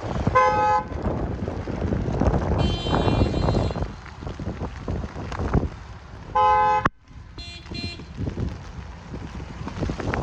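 Car horns honking in city traffic: a half-second honk near the start, a higher-pitched tone for about a second, another honk about six and a half seconds in, then two short beeps. Wind buffets the microphone throughout.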